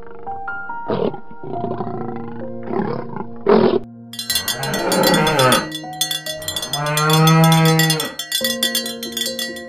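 Animal calls over background piano music: shorter rough calls in the first half, then one long moo, like a bull or cow lowing, about seven seconds in.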